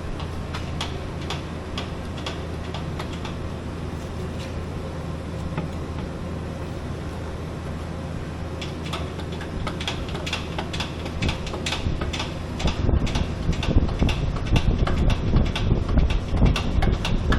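Machinery running with a steady low hum and irregular clicking and rattling. About twelve seconds in, a louder, rougher low rumble comes in.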